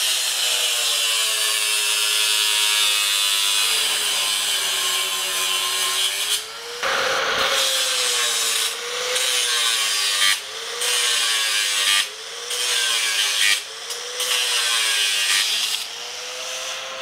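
Angle grinder cutting through the steel wire frame of a shopping cart. The motor whines steadily, and in the second half its pitch repeatedly sags and recovers as the disc bites into one wire after another, with a few brief drops where it comes off the metal.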